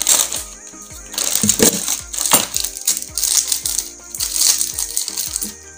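Plastic wrapping crinkling and rustling in repeated bursts as an access point and its antenna are handled and unwrapped, over background music with held notes.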